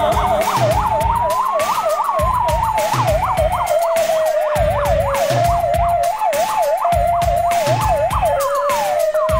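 Police sirens running together: one slow wail rising and falling, and a fast yelp sweeping up and down about three times a second, switching to a steady two-tone hi-lo for a few seconds midway. A steady thumping music beat runs underneath.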